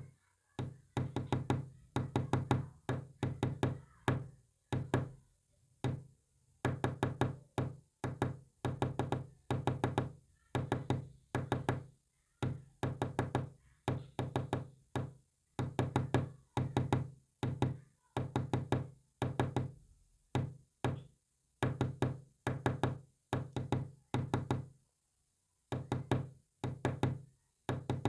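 Knocking tapped out in quick groups of several knocks with short gaps between them, like a message knocked in Morse code. There is a longer pause of about a second near the end.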